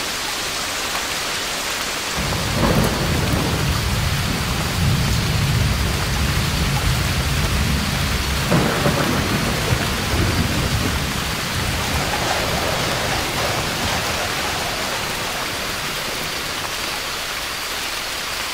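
Steady rain hissing, with a long roll of thunder that breaks in about two seconds in. The thunder rumbles in several surges, then slowly fades out over the last few seconds.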